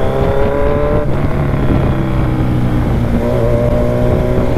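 Kawasaki Z1000's inline-four engine running under way at low city speed, heard from on the bike. Its pitch climbs slightly, drops about a second in as the throttle eases, then climbs again near the end.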